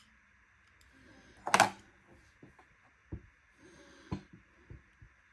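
Diamond painting pen tip pressed and scraped into a small metal tin of drill wax, loading the pen: small knocks and brief scraping sounds, with one louder knock about a second and a half in.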